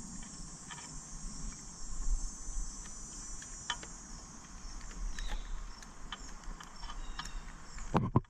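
A steady high trill of insects, with scattered light clicks and taps from handling the trolling motor's steering cable and gear parts, and one louder knock near the end.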